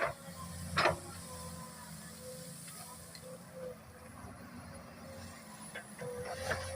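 Excavator running steadily with a low rumble and a wavering whine, with sharp metallic knocks twice in the first second and again near the end as it works the trash.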